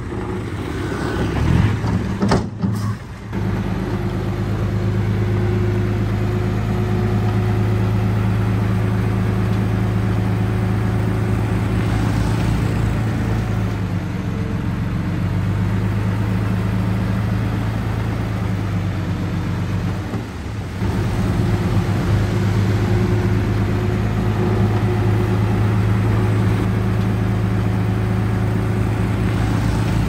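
Heavy diesel engine running steadily at an even speed, with brief breaks about two and a half seconds in and again about twenty seconds in.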